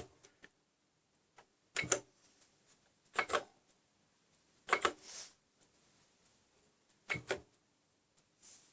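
Kaypro II keyboard keys pressed in short groups of two or three clicks, about five groups spaced a second or so apart.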